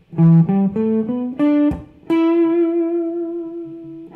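Electric guitar playing a simple E minor pentatonic blues-rock phrase: a quick ascending run of single notes (root, minor third, fourth, fifth, minor seventh) that lands on the octave and sustains there, slowly fading.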